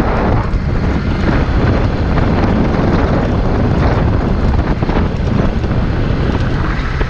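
Steady wind rush on the microphone of a motorcycle moving at road speed, with the engine running low underneath.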